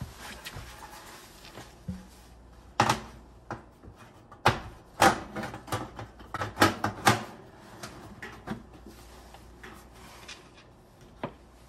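Thin sheet-metal rear access panel of an electric stove being handled and fitted back into place: a run of sharp metal knocks and rattles, most of them between about three and seven and a half seconds in, with a couple of lighter knocks later.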